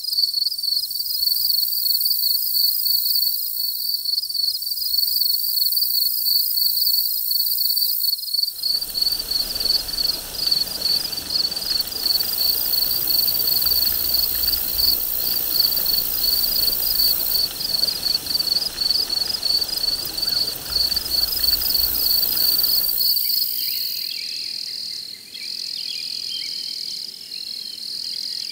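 Outdoor insect chorus: a loud, rapidly pulsing high-pitched chirping with a fainter, higher hiss above it. A broad rushing noise joins about nine seconds in and drops away about fourteen seconds later, and near the end the chirping changes to a steady unbroken trill.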